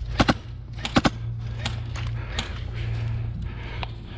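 Airsoft guns firing sharp clacking shots in short groups of two or three, a few times, with single shots after, over a faint steady low hum.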